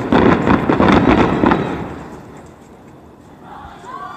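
Fireworks bursting: a loud boom followed by a rapid run of sharp crackling reports that die away after about two seconds.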